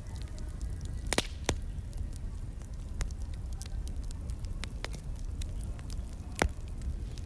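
Crackling fire: irregular sharp pops and snaps over a low, steady rumble. The loudest pops come about a second in and again near the end.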